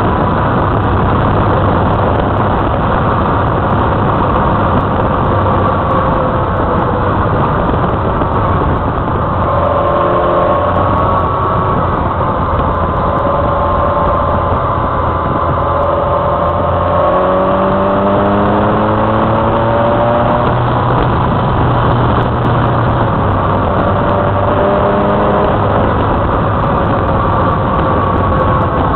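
Motorcycle riding at speed: the engine runs under a steady rush of wind and road noise, its pitch rising several times through the middle as the throttle opens between bends.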